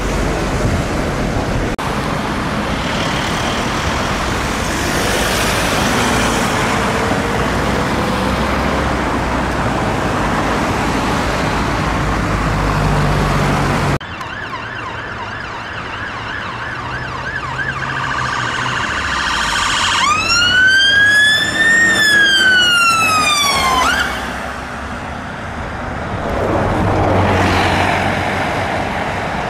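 Emergency vehicle siren passing in traffic: a fast yelp, then one slow wail that rises for about two seconds, falls for two and cuts off abruptly. For the first half, before a cut, there is only steady road and engine noise.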